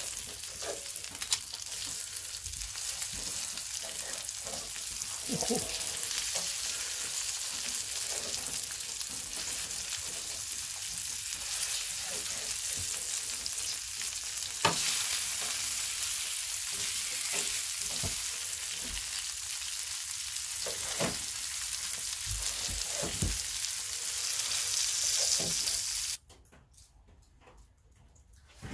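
Meat sizzling in a cast-iron skillet, with occasional clicks of tongs and a knife against the pan as it is cut up and turned. The sizzle cuts off suddenly near the end.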